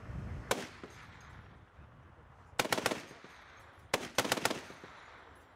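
Vehicle-mounted belt-fed heavy machine gun firing: a single shot about half a second in, then two short rapid bursts of several rounds each, around three and four seconds in.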